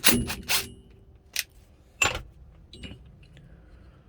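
Steel steering wheel puller parts and bolts clinking and clanking as they are handled and taken off. There are three sharp, ringing metal clinks close together at the start, a lighter one shortly after, and a louder clank about halfway through, then faint small clicks.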